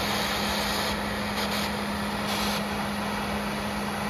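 Torch flame hissing steadily as it preheats the crankshaft tone ring before welding, over a constant low hum.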